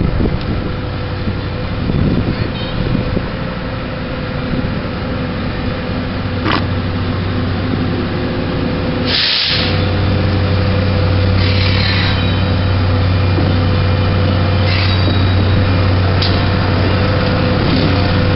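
Northwestern Pacific 2009 diesel locomotive engine running steadily as the train approaches with loaded flatcars, growing louder from about ten seconds in. A few brief high-pitched noises come through over the engine sound.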